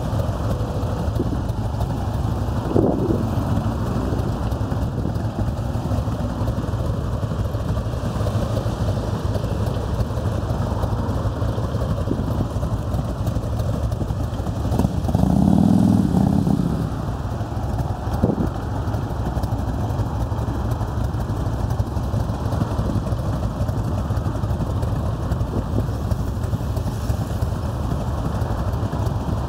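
Harley-Davidson V-twin motorcycle engines idling steadily, with a louder swell lasting about two seconds about halfway through.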